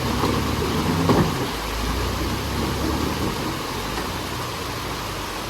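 Jeep Wrangler TJ on 35-inch tires crawling over rock, its engine running low and steady, with a brief knock about a second in.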